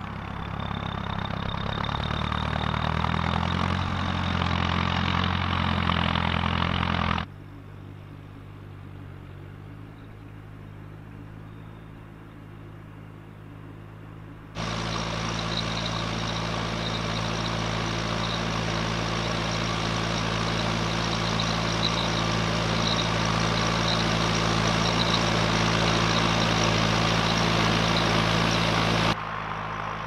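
Fendt Vario 415 tractor's four-cylinder diesel engine running steadily under load while pulling a reversible plough, with a thin high whine over the engine note. It grows louder over the first few seconds, drops to a quieter, more distant sound about seven seconds in, and jumps back up loud about halfway through.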